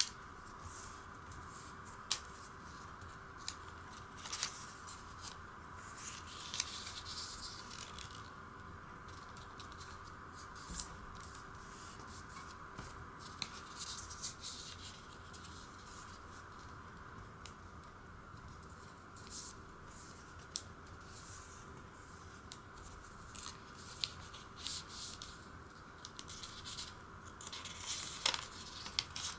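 A square of origami paper being folded and creased by hand on a wooden tabletop: scattered crisp rustles and a few sharp crease clicks, over a steady faint hiss.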